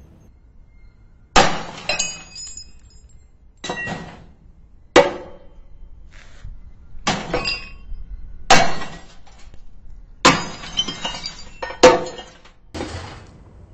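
Hammer blows smashing the glass of a CRT television's picture tube: seven sharp strikes a second or two apart, each followed by ringing and clinking glass shards.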